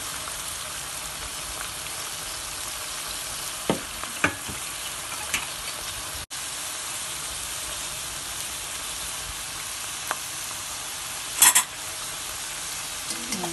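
Onion, garlic and tomato paste sizzling steadily as they sauté in a metal pan, with a few short clicks and scrapes of a spatula against the pan.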